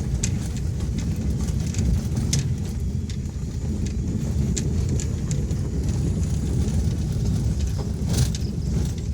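Car driving, a steady low rumble of engine and road noise with scattered light clicks and rattles, the loudest about eight seconds in.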